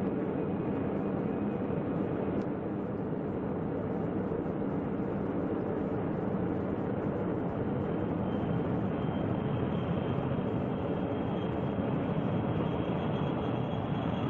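Jet aircraft engines running steadily at power, a constant rushing noise, with a faint thin whine joining about halfway through.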